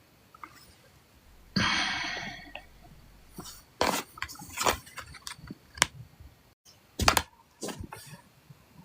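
A hungry person's stomach growling: a sudden rumble about a second and a half in that fades away over about a second, followed by several short, sharp knocks.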